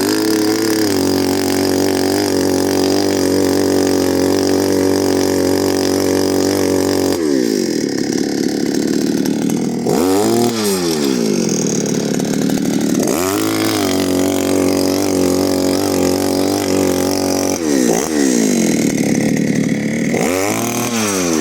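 Petrol engine of an earth auger running steadily, then revving down and up again several times.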